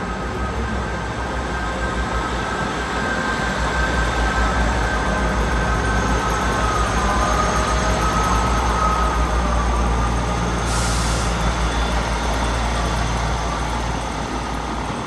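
Diesel multiple-unit train engines running as a train moves through the station, swelling to a peak midway, with a brief hiss of air about eleven seconds in.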